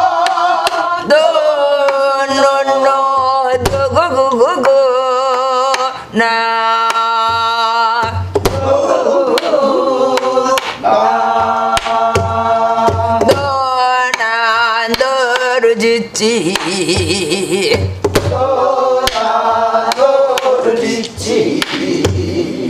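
Gueum, the wordless vocable singing of Korean folk vocal music, sung with wide vibrato. It is accompanied by a buk barrel drum struck with a stick, whose low strokes fall about every two seconds.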